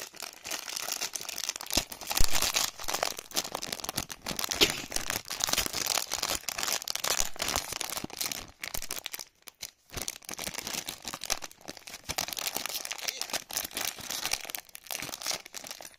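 Foil blind-bag wrapper crinkling and crackling as it is squeezed and pulled at by hand, stopping briefly about halfway through.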